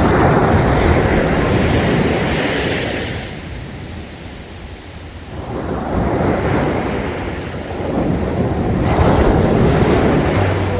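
Sea waves breaking and washing up the shore: loud surf at first, easing off around the middle, then building again as the next wave comes in.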